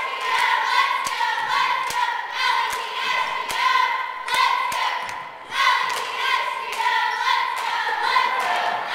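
A group of cheerleaders chanting a cheer in unison, in rhythmic phrases. Sharp hits, claps or stomps, keep a steady beat about every 0.8 s.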